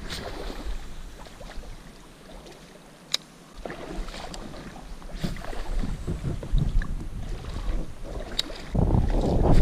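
Wind buffeting the microphone: a low rumble that comes in after a few seconds and grows louder near the end. A couple of sharp clicks stand out above it.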